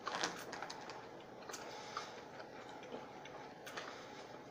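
Two people chewing mouthfuls of burger close to the microphone: faint, scattered wet mouth clicks, with a slightly louder cluster of clicks right at the start.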